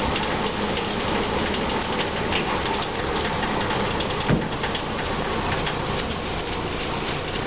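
Railroad turntable rotating with a passenger coach on it: the bridge and its end drive unit roll along the circular rail with a steady rumbling rattle and light clicking. A sharper knock comes about four seconds in.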